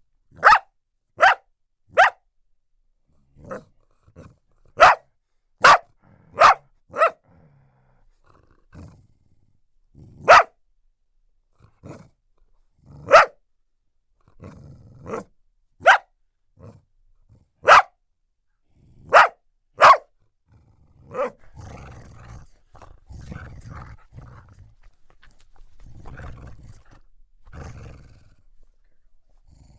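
Australian Cattle Dog barking in about a dozen sharp single barks, spaced unevenly a second or several seconds apart. About two-thirds of the way in the barking stops and gives way to low, continuous growling.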